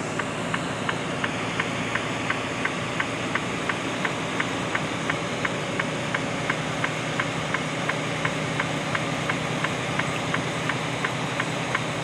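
Steady engine and road noise heard inside a moving semi-truck's cab, with a light, even ticking about three times a second.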